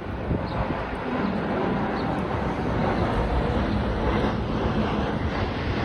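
Jet airliner flying low on approach, its engines a steady rumble.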